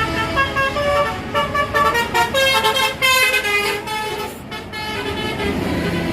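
Bus 'basuri' telolet multi-tone air horn playing a quick tune of short stepped notes, stopping about four and a half seconds in, with a low engine rumble underneath.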